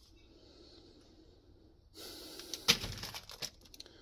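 Mostly quiet. About halfway through comes a short rush of noise, then one sharp click and a run of lighter clicks and rustles as the wires of a car wiring loom are handled.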